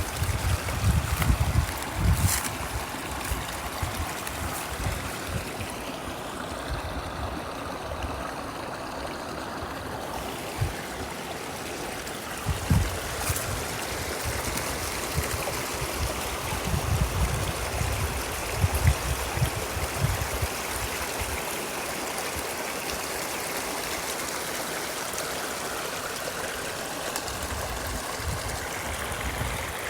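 Brook running steadily over and under ice, a continuous rush of flowing water with some trickling. Low thumps come in briefly near the start and again about two-thirds of the way through.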